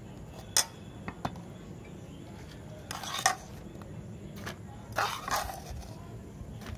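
Steel spoon scraping and clinking against an aluminium pot as boiled potatoes are mixed: a sharp clink about half a second in, a few lighter clicks, then short scraping bouts around three and five seconds in.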